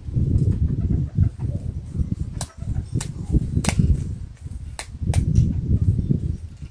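A chicken being held while its wing feathers are clipped with scissors: uneven flapping and scuffling against the hands, with five sharp snips spread over the middle few seconds.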